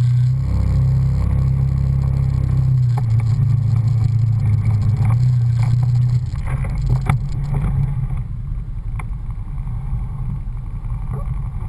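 Off-road 4x4's engine running with a steady low drone that drops away about six seconds in, leaving a rougher, quieter rumble. A few sharp knocks and clatters come in the middle.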